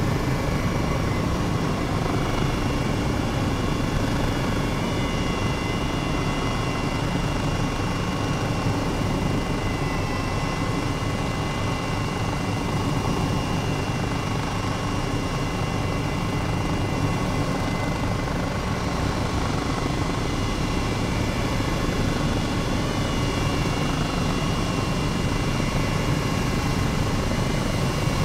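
Helicopter running steadily in flight: a dense, even engine and rotor noise with a thin, high, steady whine above it.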